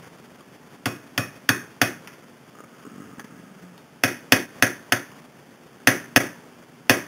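Ball-peen hammer striking a steel pin punch in quick runs of taps: four, then four more, then two and a last single strike near the end.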